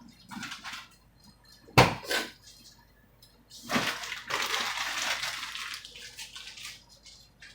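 Water running and splashing for about three seconds, fading out near the end, after a single sharp knock about two seconds in.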